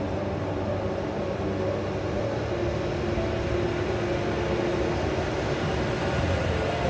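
A locomotive-hauled SJ passenger train with an Rc electric locomotive, its coaches rolling past on the platform track: a steady rumble of wheels on rail with a hum of a few held tones that drift slightly in pitch.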